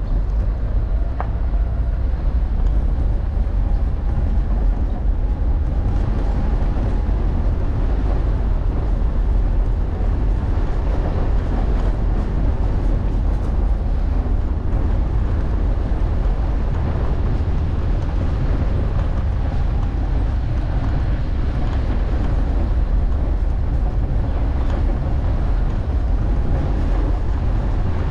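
A car driving, a steady deep rumble with road noise.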